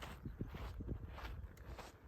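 Faint footsteps of someone walking, about two steps a second.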